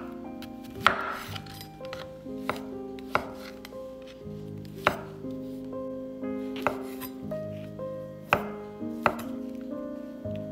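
Chef's knife slicing button mushrooms on a wooden cutting board, the blade knocking sharply on the board every second or two, over background music with held notes.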